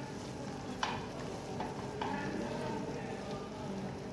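Wooden spatula scraping thick, grainy besan barfi mixture out of a kadhai into a metal cake tin, with two sharp knocks about one and two seconds in.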